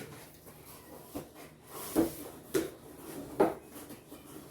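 Snack packaging being handled: a few short crinkles and clicks, about four in all, as a wrapped candy is picked up and opened.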